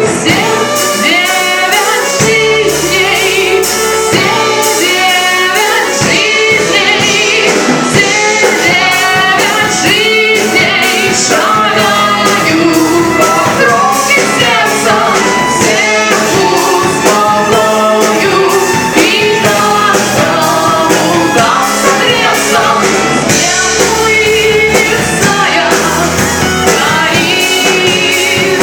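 Rock band playing a song live: drums and guitar with a sung melody over them.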